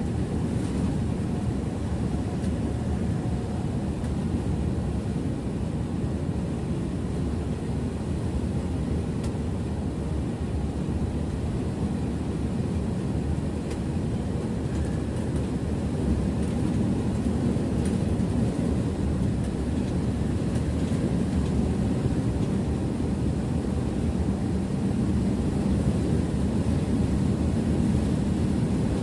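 Steady engine and road noise inside the cab of a Mercedes-Benz bus at cruising speed, a little louder about halfway through.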